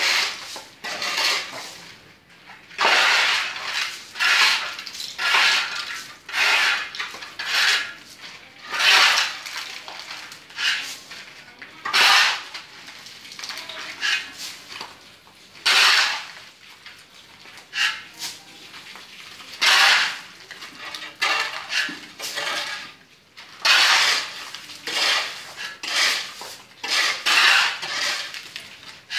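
Metal shovel and hoe blades scraping and chopping through a pile of sand and gravel on a concrete floor as it is mixed by hand. The gritty scrapes come one after another, about one a second, at an uneven pace.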